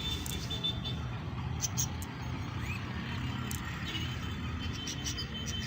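Small ornamental cage birds chirping in short, high twitters, with a few sharp clicks, over a steady low rumble.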